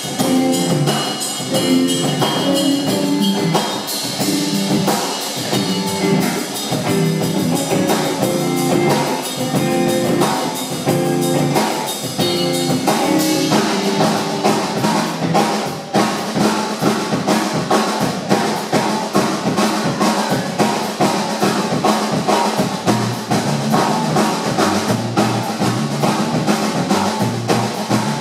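Live band playing an instrumental jam: electric guitar and electric bass over a drum kit keeping a busy beat, with a change in the playing about halfway through.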